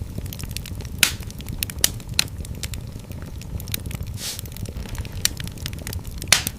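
Wood fire burning in a fireplace: a steady low rumble of flames with scattered sharp crackles and pops, the loudest about a second in and near the end, and a brief soft hiss midway.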